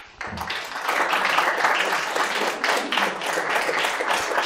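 Audience applause: many people clapping together, starting a moment in and holding steady.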